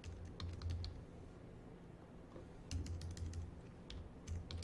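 Typing on a computer keyboard: three short runs of key taps, near the start, around the middle and near the end.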